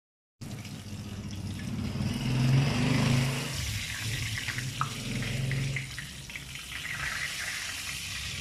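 Boneless milkfish (bangus) frying in hot oil in a wok, sizzling steadily, with a low hum underneath. The sizzle starts abruptly a moment in.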